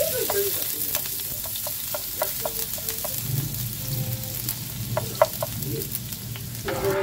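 Chopped garlic sizzling in hot oil in a nonstick pan as it is stirred with a spatula. A steady hiss starts suddenly as the garlic hits the oil, with scattered sharp pops and taps throughout.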